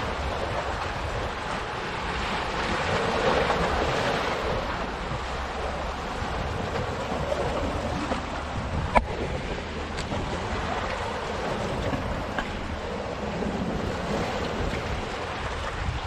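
Black Sea waves washing and splashing among the boulders of a rocky shore, swelling louder about three seconds in, over a low rumble of wind on the microphone. A single sharp snap stands out about nine seconds in.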